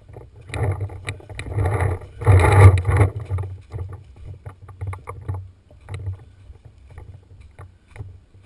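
Rubbing and scraping handling noise from a paintball marker and its mounted camera moving against rock, in three louder bursts over the first three seconds, over a low pulsing rumble with scattered sharp clicks.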